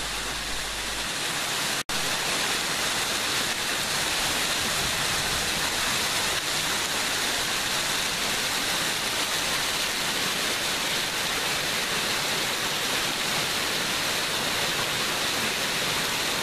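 Steady rush of falling water, even and unbroken, with a momentary dropout about two seconds in.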